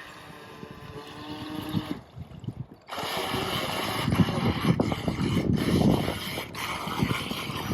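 Remote-control toy boat's small motor running on the water with a steady hum. It drops out about two seconds in, then comes back a second later louder and rougher.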